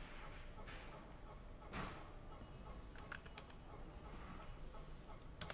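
Faint computer keyboard keystrokes, a few scattered taps over a low steady hiss.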